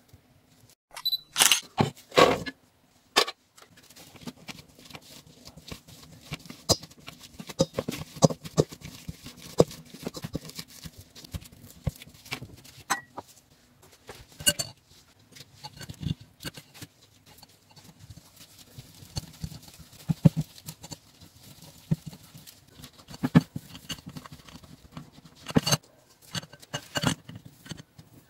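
Kitchen prep sounds: scattered clicks and knocks of metal and glass as cooked red beans are handled in a steel colander and mashed beans are pressed through a wire sieve into a glass bowl. The loudest knocks come together a second or two in.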